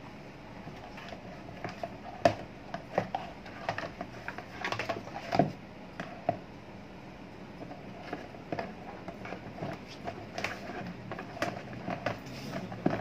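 Irregular plastic clicks, taps and knocks as the black plastic housing of a small desk fan is handled and fitted together, with a couple of louder knocks about two and five seconds in.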